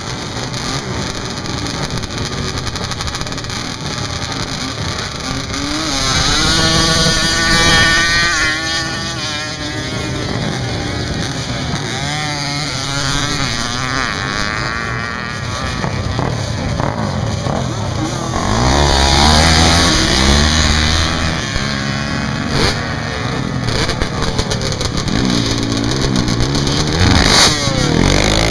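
Sport quad (ATV) engines revving hard as quads launch and race up a sand-dune drag hill, the pitch climbing and falling with each run, with other quads running close by. The engines get louder in surges about six seconds in, around nineteen seconds, and again near the end.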